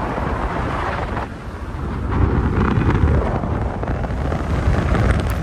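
Steady road and wind noise of a moving car, with wind buffeting the microphone.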